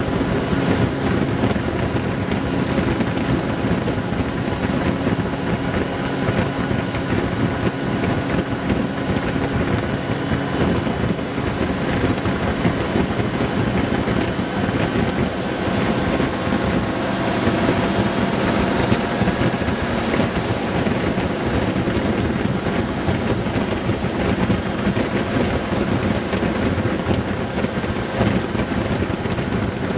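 Honda Gold Wing GL1800's flat-six engine running steadily at cruising speed, under heavy wind rush on the microphone and road noise.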